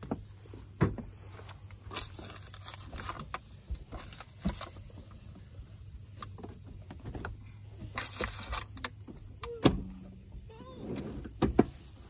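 Knocks, thumps and rustling of children clambering into the back seat of a pickup truck's extended cab, over a low steady hum. The sharpest knocks come about a second in and near the end.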